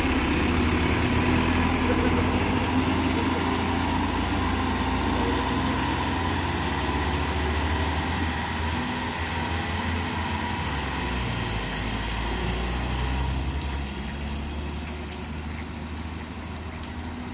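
Truck engines running as the vehicles drive off, a steady low hum that slowly fades.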